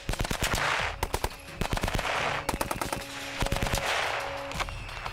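1916 Vickers machine gun, a water-cooled .303, firing at a fast rate in several bursts separated by short pauses.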